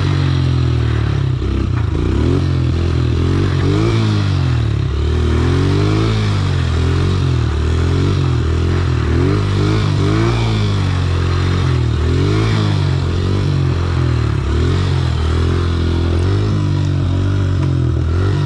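Small four-stroke dirt bike engine heard from the rider's seat, revving up and falling back over and over as the throttle is worked.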